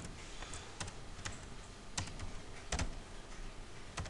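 Computer keyboard typing: separate, irregularly spaced keystrokes.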